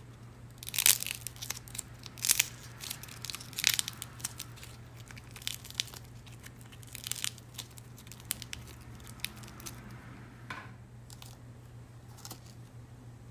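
A dried clay swim-ring figure is bent and snapped between the fingers, making many sharp crackles and crunches. The crackling is thickest and loudest in the first seven seconds, then thins to a few scattered cracks near the end.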